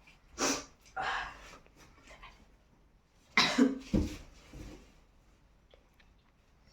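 A person's short, explosive nose-and-throat bursts, like coughs or held-back sneezes. Two come in the first second and a half, then a louder pair follows about three and a half seconds in.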